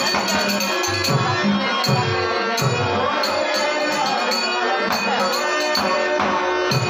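Dashavatar stage music: a harmonium holding chords while a pair of small brass hand cymbals (taal) is struck in a steady rhythm.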